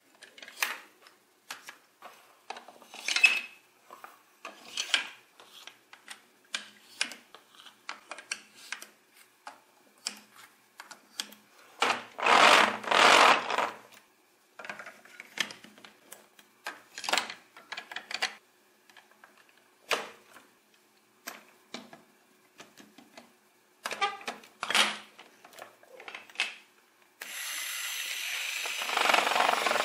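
Plastic toy building bricks and gear-wheel parts clicking, knocking and snapping together as they are handled and fitted. The clicking is scattered, with a louder stretch of rattling about twelve seconds in and a steadier, louder rattle starting near the end.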